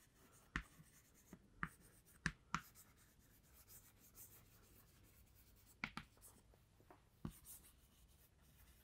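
Chalk writing on a chalkboard: faint scratching strokes broken by sharp taps as the chalk hits the board, several in the first three seconds and a few more later.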